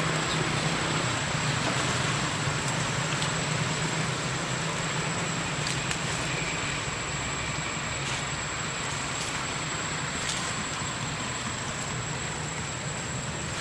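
Steady outdoor background noise: an even rush with a low hum beneath it and a thin, steady high whine, broken by a few faint clicks.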